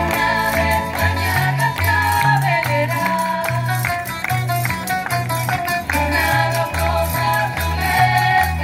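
A women's student tuna singing together to strummed and plucked guitars and bandurria-type string instruments, with a steady stepping bass line, amplified through a PA system.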